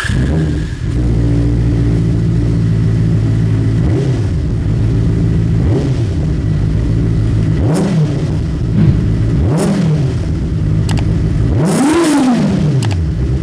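Benelli TNT 600i's 600cc inline-four engine idling, blipped up and down about five times. The last rev, near the end, is the highest.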